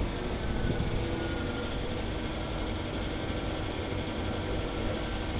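CNC turning center (lathe) running: the spindle turns steadily with a constant machine hum while the turning tool cuts the small bar in a step-turning pass. A faint whine falls slightly in pitch over the first couple of seconds, and a light knock sounds right at the start.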